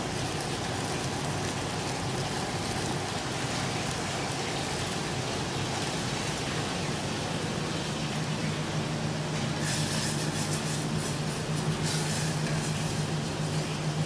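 Steady hiss and hum of a commercial kitchen, with a gas burner lit under a saucepan of tomato sauce. A low hum grows stronger about eight seconds in, and a few brief scrapes of a spatula stirring the sauce come near the end.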